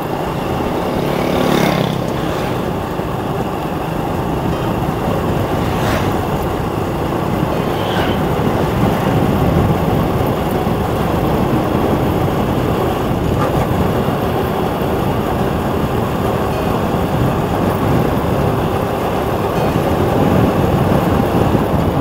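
Steady engine and road noise from a vehicle travelling along a paved road, with a few brief faint clicks.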